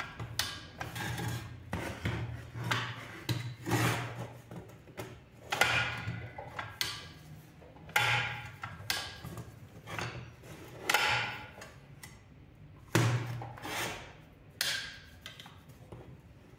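Giant hand-made steel locking pliers worked by hand on a steel table: irregular metal clanks and clicks as the handles are squeezed and released, every second or two, some ringing briefly, over a faint low hum.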